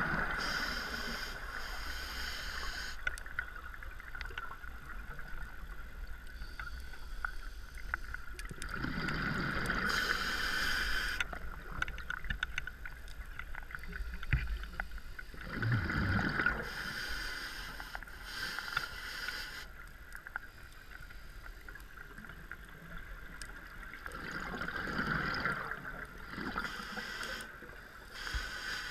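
Scuba diver's regulator breathing heard underwater: a hissing inhale, then a rumbling burst of exhaled bubbles, repeating about every eight seconds.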